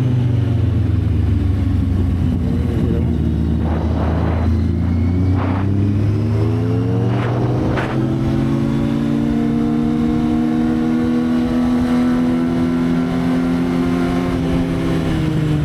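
Motorcycle engine running steadily under light throttle. Its pitch dips near the start, holds, rises gently in the second half and eases off near the end, with a few short rushes of noise in the middle.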